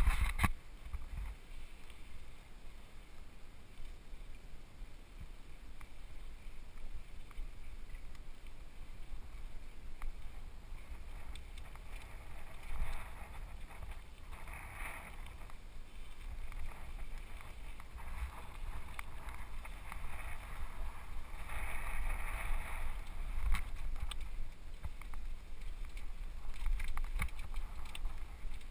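Wind buffeting and low rumble on a helmet-mounted GoPro HD's microphone as a Specialized FSR Pro full-suspension mountain bike rolls along a dirt singletrack. A sharp knock comes right at the start, and a louder rushing noise rises around halfway and again about three quarters in.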